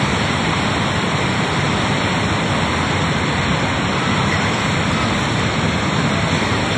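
Rushing floodwater of a river in spate: a loud, steady, unbroken noise of churning water.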